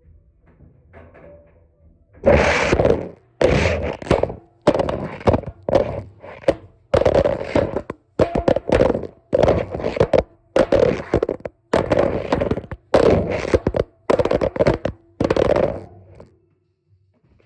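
Repeated heavy thunks and clatter, about a dozen bursts less than a second apart, like a cased phone tumbling and banging inside a washing machine drum, over a faint steady hum.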